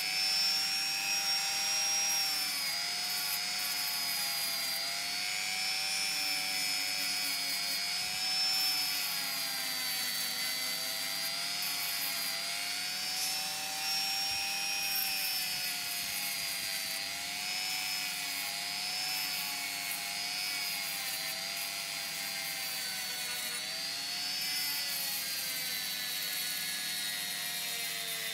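Handheld rotary tool spinning a sanding drum against the edge of a plywood saw handle: a steady high-pitched whine whose pitch sags and recovers as the drum is pressed into the wood.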